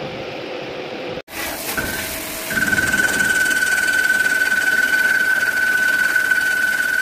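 CNC lathe turning a metal part under coolant spray: a steady hiss, joined about two and a half seconds in by a loud, steady, high-pitched whine that holds. Before it, a brief lower workshop hum cuts off abruptly about a second in.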